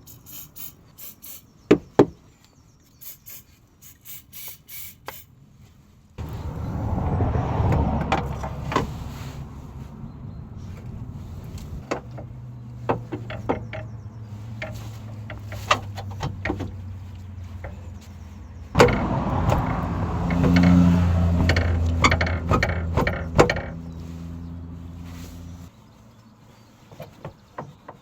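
Scattered sharp metallic clicks and taps, then a motor running steadily for about twenty seconds, louder for a few seconds near the end, with clicks over it, before it cuts off.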